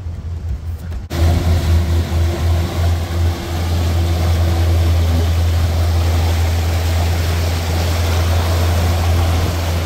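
Rushing, churning water of a solar electric yacht's stern wake at cruising speed, over a steady low hum. The rush of water comes in abruptly about a second in.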